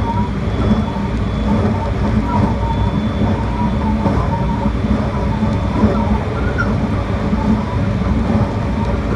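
Train running along the line, heard from inside the carriage: a steady rumble of wheels on rail and the car's running gear.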